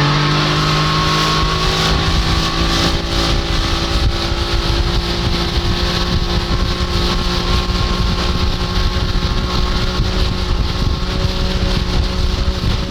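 1992 Johnson 60 hp three-cylinder two-stroke outboard running steadily at high throttle, driving the boat at speed.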